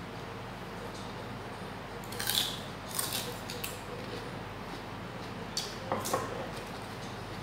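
Biting into and chewing a crisp raw lettuce stalk dipped in sauce: a few short crunches about two seconds in, then more around six seconds, over a steady low hum.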